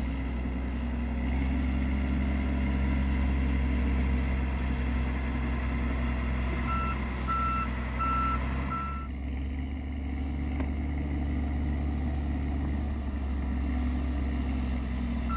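Diesel engine of a tracked snow groomer running steadily as it works the snow. About seven seconds in, its reversing alarm beeps four times as it backs up.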